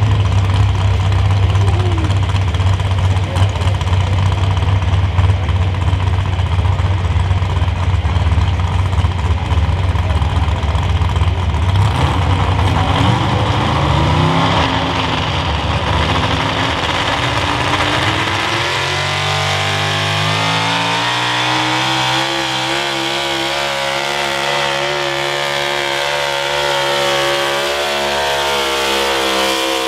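Super stock 4x4 pulling truck's engine running loud and steady with the truck hooked to the sled. From about a third of the way in it revs up, and its pitch then climbs steadily as the truck launches and pulls the sled down the track under full load.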